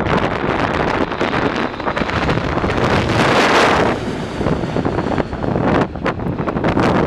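Storm wind buffeting the microphone in heavy gusts over the noise of a Boeing 787's jet engines as it passes low overhead with its gear down. The jet noise swells to its loudest about three seconds in, as the aircraft goes directly overhead, then fades as it climbs away.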